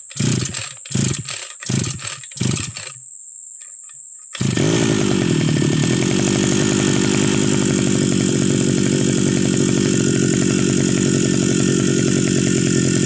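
Two-stroke brush cutter engine being pull-started: a quick series of about five short, rough bursts as the starter cord is pulled. About four seconds in, the engine catches and runs steadily and loudly.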